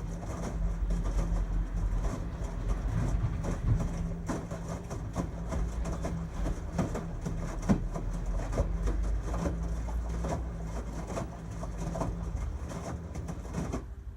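LG Tromm WD-CR101C front-loading drum washing machine running its quick-wash cycle: a steady low motor hum with irregular knocks as the drum turns, dropping away at the very end.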